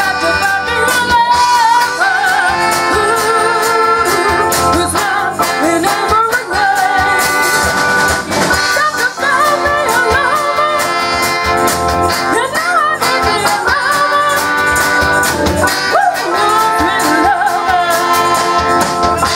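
Live band music: a woman singing lead with wavering held notes over the band, a baritone saxophone playing alongside her.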